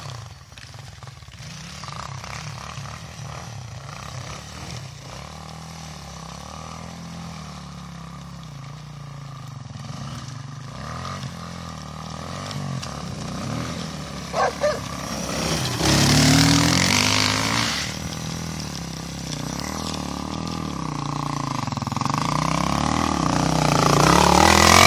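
Honda XR200R dirt bike's single-cylinder four-stroke engine revving up and down as it rides and spins its rear tyre in snow, growing louder toward the end. About halfway through there are two short, sharp sounds over the engine.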